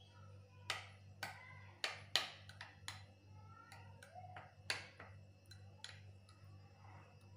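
Metal spoon clinking irregularly against a small glass bowl while stirring chilli powder and chopped garlic into oil: a series of light, sharp clinks at uneven intervals.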